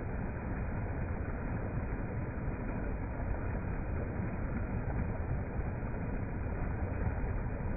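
Fast-flowing river water rushing as a steady, deep, unbroken noise.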